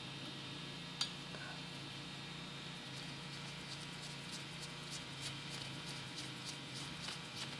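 Faint light metal clicks and ticks as connecting rod nuts are fitted by hand onto the rod bolts: one sharper click about a second in, then a run of quick small ticks from about three seconds on, over a steady low hum.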